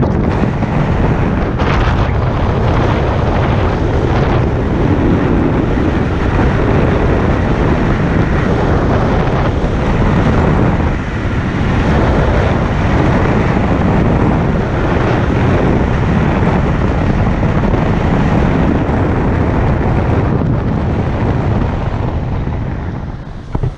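Wind buffeting the microphone of a camera mounted on the side of a moving car, over road and engine noise. It dips briefly partway through and eases off near the end as the car slows.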